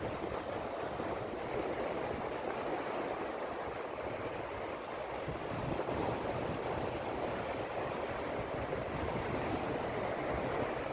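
Sea waves washing steadily onto a beach, a continuous rushing noise.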